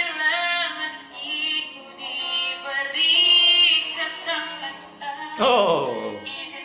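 A teenage boy singing a slow ballad in long, high, held notes. About five seconds in, a voice slides steeply down in pitch.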